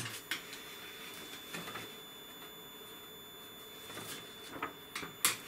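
Large paper schematic sheets rustling as they are lifted and moved, with a few short light clicks and taps spread through, the sharpest near the end. A faint steady high-pitched tone runs underneath.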